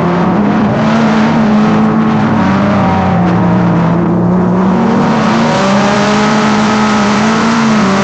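Drag-racing car engines running loud and fairly steady, their pitch sagging a little midway and then climbing back.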